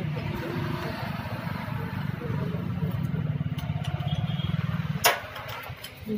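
Massey Ferguson 241 tractor's diesel engine running with a steady, fast low throb. About five seconds in comes one sharp knock, after which the engine sounds weaker.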